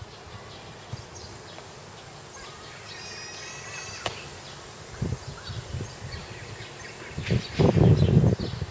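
Outdoor background noise with faint chirps and a short whistle-like call about three seconds in. A loud low rumble lasting about a second comes near the end.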